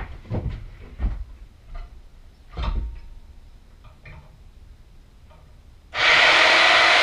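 Clunks and knocks as a portable bandsaw is handled and set down on a steel helmet rack clamped in a jaw horse. About six seconds in, the bandsaw's motor switches on and runs loud and steady.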